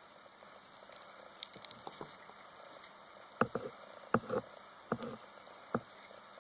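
Light clicks and taps from small hand tools and wire being handled: faint ticks early on, then about five sharp clicks over the following few seconds.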